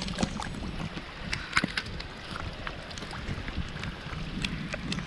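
Heavy rain, with drops striking the camera as scattered sharp taps over a low rumble of wind on the microphone.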